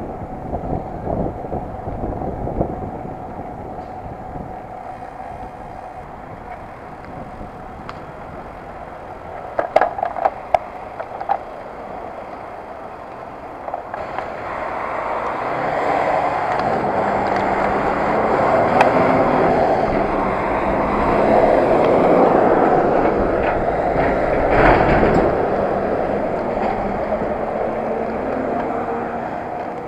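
Riding a road bike on an asphalt path: wind rushing over the microphone and tyres rolling, with a few sharp clicks about ten seconds in. The rushing gets louder from about halfway through and stays loud.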